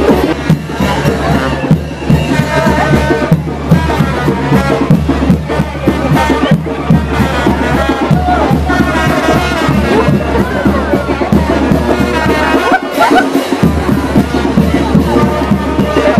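A brass band with drums playing loud, steady chinelo dance music, with the chatter of a dense street crowd mixed in.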